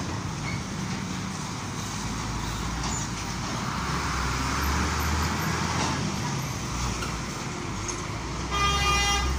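Road traffic on a busy street: vehicles passing with a low engine rumble that swells in the middle and again near the end. A short high tone sounds near the end.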